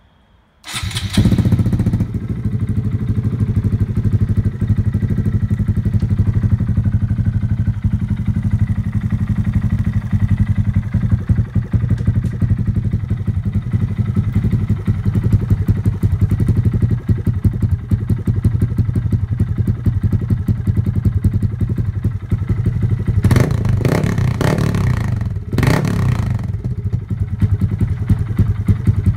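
A 2019 Honda Grom's single-cylinder engine, breathing through an aftermarket racing exhaust and a modified airbox, comes in loud about a second in and settles into a steady idle. Near the end it is revved twice, briefly.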